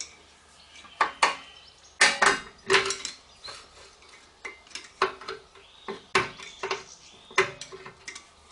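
Handbrake shoe adjuster inside the rear brake disc of a 2014 Hyundai Santa Fe, worked with a screwdriver through the disc's access hole. It gives irregular sharp metallic clicks and clinks as it is backed off a few clicks from locked solid, and several of the clicks ring briefly.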